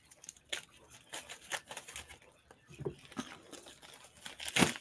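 Packaging torn open and crinkled by hand while unboxing: a run of short, irregular ripping and rustling sounds, the loudest rip near the end.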